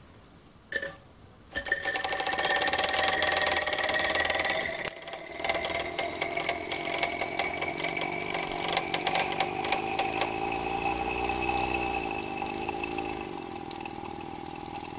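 RW-BL1K single-cylinder model steam engine starting about a second and a half in as its boiler's steam valve is opened, then running fast with a rapid beat over a steady hiss of steam.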